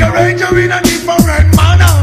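Old-school 1980s–90s hip hop track: a heavy bass line under a steady drum-machine beat, the kick drum dropping in pitch on each hit, with hi-hats and vocals over it.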